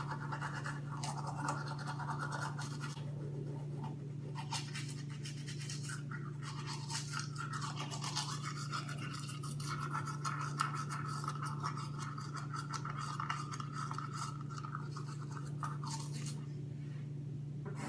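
Toothbrush scrubbing teeth: continuous rapid, scratchy brushing strokes, over a steady low hum.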